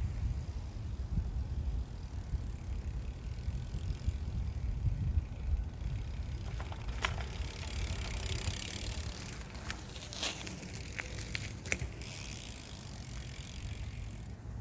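Shadow Conspiracy Symbol four-pawl cassette hub on a BMX wheel ticking as it freewheels, under a steady rumble of wind on the microphone. A few sharper clicks come in the middle.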